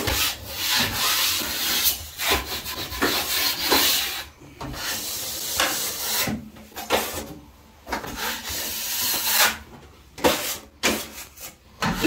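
Broad steel drywall knife scraping and smoothing topping compound across a plasterboard ceiling, in a run of strokes with short pauses between them.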